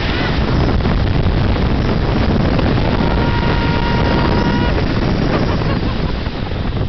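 Airflow buffeting the microphone in flight as a steady, loud rush of wind noise. About three seconds in, a steady high-pitched tone with overtones is held for under two seconds.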